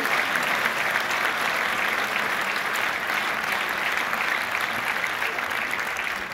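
Large theatre audience applauding steadily, a dense even clapping that eases slightly near the end.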